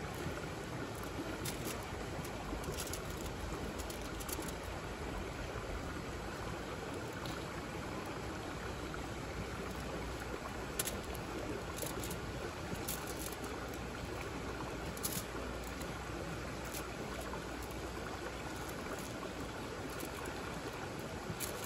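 Food cooking over a campfire: a steady hiss with a sharp crackle every few seconds.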